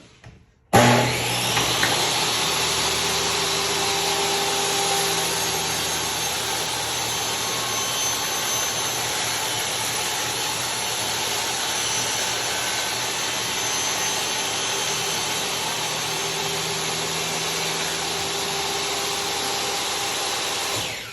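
Table saw starting abruptly about a second in and running steadily while ripping a board, then cut off near the end with a short fading tail as it winds down.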